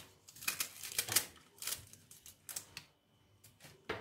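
Fresh spinach stems being snapped and pulled apart by hand: a run of irregular crisp snaps and rustles, with a brief lull about three seconds in.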